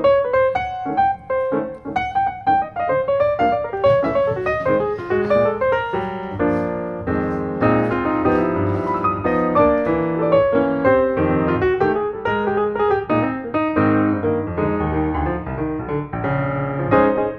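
Piano music with a busy melody of quickly struck notes over lower accompanying notes.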